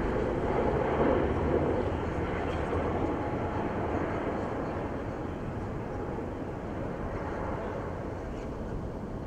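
Mil Mi-26 heavy helicopter's turbine and rotor noise, a steady rush that slowly fades as the helicopter moves away.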